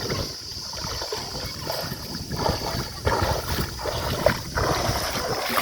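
Water sloshing and splashing in irregular strokes, with wind rumbling on the microphone.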